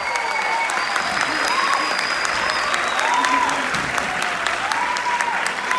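Theatre audience applauding steadily, with several short rising-and-falling shouts called out above the clapping.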